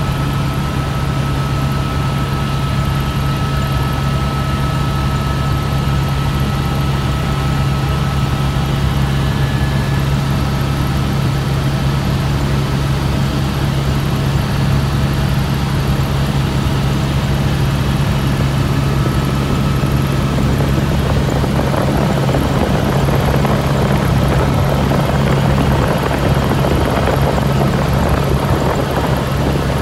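Helicopter heard from inside its cabin in flight: a steady, loud drone of rotor and engine. A rushing noise grows over the last third.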